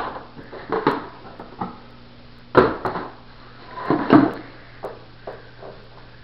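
Handling clatter of a clear plastic storage-tub enclosure and metal feeding tongs: a string of separate sharp knocks and clatters, the loudest two about two and a half and four seconds in, then a few lighter taps.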